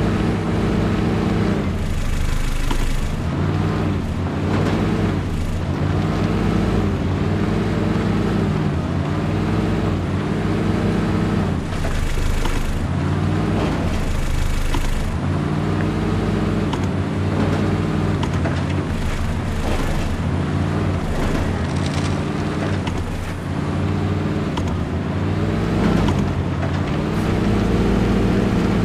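RC scale Toyota Land Cruiser crawler's electric motor and drivetrain whining as it crawls over rough dirt, the pitch rising and falling in repeated short throttle pulses every second or two.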